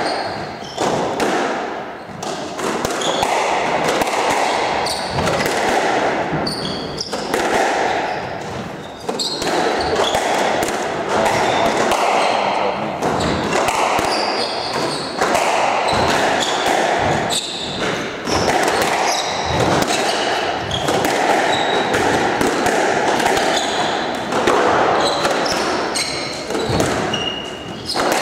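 Squash rally: the ball knocking hard again and again off rackets, the walls and the floor, with short squeaks of shoes on the wooden court floor.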